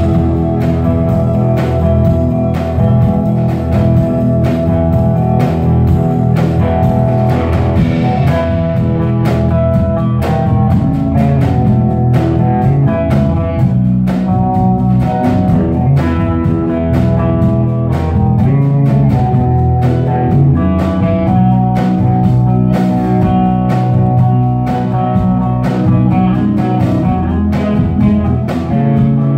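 Live instrumental band playing: electric guitars over bass guitar and a drum kit, heard from the audience.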